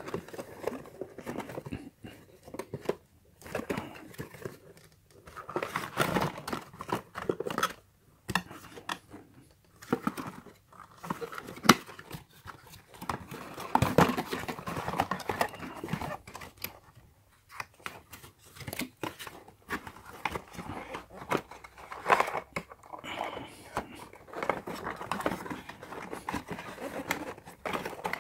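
Cardboard packaging rustling and scraping as a gaming headset is worked out of its folded paper insert, with irregular crinkles, slides and a few sharp clicks, one louder about halfway through.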